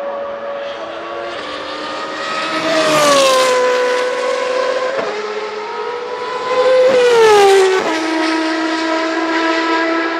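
High-revving racing engines of open-wheel single-seaters, two cars heard in turn. Each grows louder for a moment, about 3 and 7 seconds in, with its pitch falling as it goes by. Near the end the pitch steps down abruptly.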